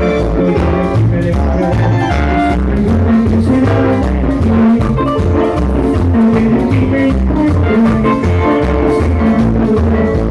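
Live Latin dance band playing over a steady beat, with a repeating bass line.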